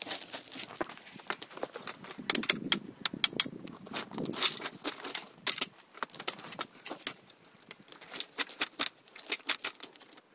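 Loose stone ballast crunching and clinking in quick, irregular clicks as it is worked around the sleepers with a long-handled bar and a hammer. The clicks thin out in the second half.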